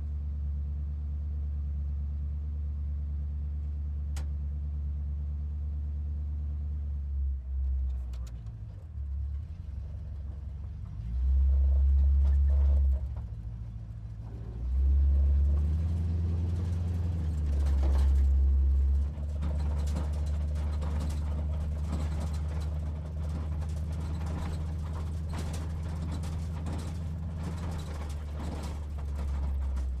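American muscle car engine idling with a deep, steady note, revved twice in the middle, once briefly and once for about four seconds, before settling back to idle.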